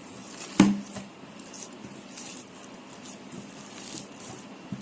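Hands kneading and rolling warm mashed boiled plantain into a ball, a soft squishing with light clicks. One sharp knock about half a second in.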